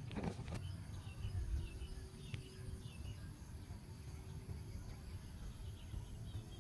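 Outdoor rural ambience: wind rumbling on the microphone, a few faint bird chirps, and a steady high-pitched insect drone.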